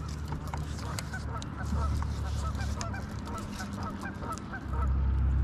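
Many birds calling at once in a dense chorus of short overlapping calls, over a steady low rumble that gets louder near the end.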